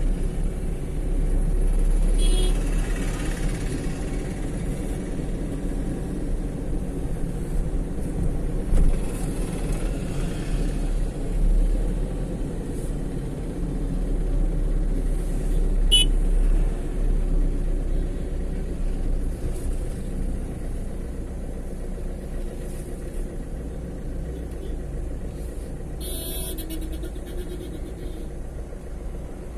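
Steady road and engine rumble of city traffic heard from a moving vehicle. Vehicle horns beep a few times: once a couple of seconds in, briefly around the middle, and most clearly near the end.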